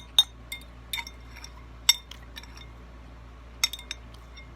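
An eating utensil clinking against a bowl while the last of the rice is scooped up: several sharp, irregularly spaced clinks.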